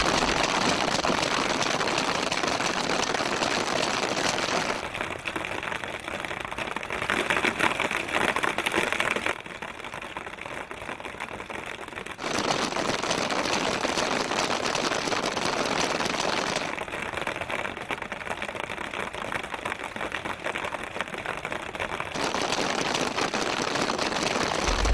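Many paintball markers firing rapidly at once, a dense, continuous rattle of shots, with the level dropping and rising abruptly several times.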